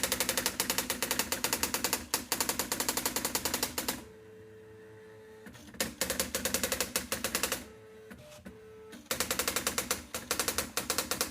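Privileg 1200 (Erika 3004) electronic daisy-wheel typewriter printing its self-test: a rapid run of type strikes, line after line. It stops twice, about four seconds in and again near eight seconds, for a short steady hum before the strikes resume.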